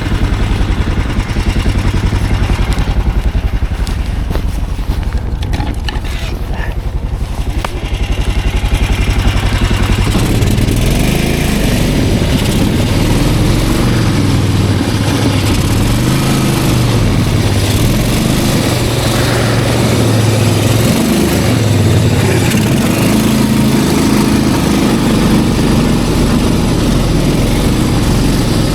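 Snowmobile engine idling with an even pulse, then about ten seconds in it picks up revs and runs on under throttle, its pitch rising and falling.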